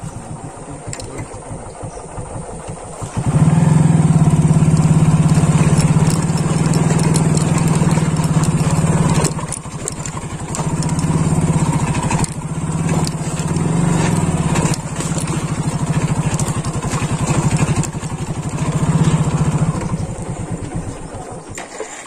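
Motorcycle engine running hard. It gets louder about three seconds in, then rises and falls with the throttle as the bike labours up a steep track, with a few knocks along the way.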